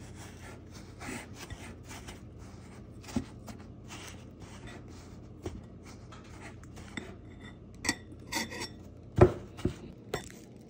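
Metal fork working cubes of butter into a dry crumble mix in a glass bowl: repeated scraping and clicking of the tines against the glass. One sharper knock about nine seconds in is the loudest.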